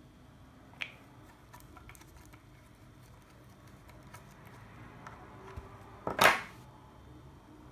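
Handling noises from hands working with small craft parts (a plastic toy nose and a glue tube): a sharp click about a second in, a few faint ticks, and a brief loud rustle about six seconds in.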